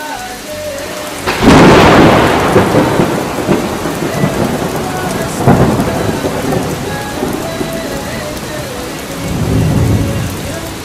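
Thunderstorm: a sharp thunderclap about a second in that rolls on into a long rumble over steady rain, a second crack about five seconds in, and a low rolling rumble near the end.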